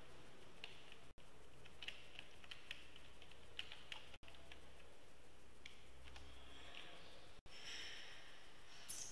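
Faint typing on a computer keyboard: scattered, irregular keystrokes over a steady background hiss.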